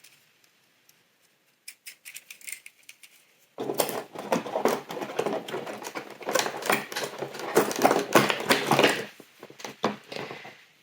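Small packaging being handled and opened. A few light clicks come first, then about six seconds of dense crinkling and rustling with quick clicks, starting about three and a half seconds in.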